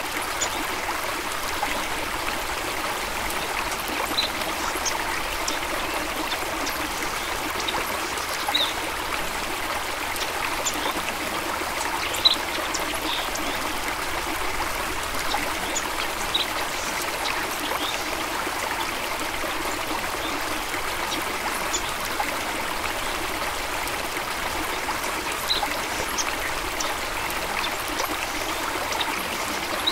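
A small stream flowing and trickling in a steady, even rush of water, with scattered brief high plinks and one sharper splash about twelve seconds in.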